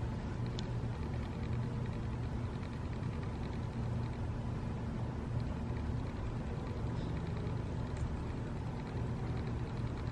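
Steady low rumble of outdoor background noise with a faint steady high tone, and no thunderclap.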